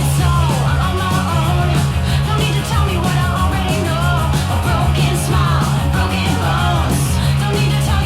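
Background rock music with a steady bass line and singing.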